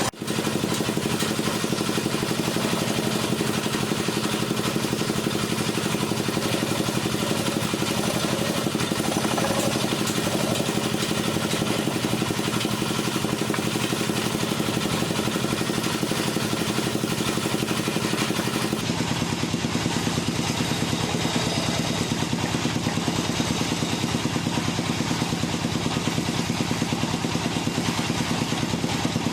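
Wood lathe running steadily with a loud mechanical hum. About two-thirds of the way through, the hum shifts to a lower, duller pitch.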